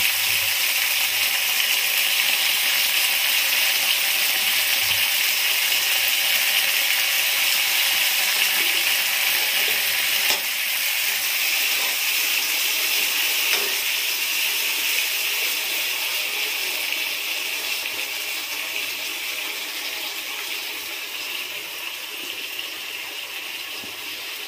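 Freshly added chopped tomatoes with green chillies and cumin sizzling in hot oil in a kadai, stirred with a ladle: a steady frying hiss that slowly fades over the second half.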